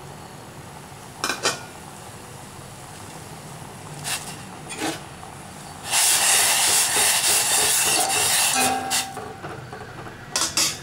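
A metal spoon stirs vegetables in a steel pot of hot water, clinking against the pot a few times. There is a loud hiss lasting about three seconds in the middle.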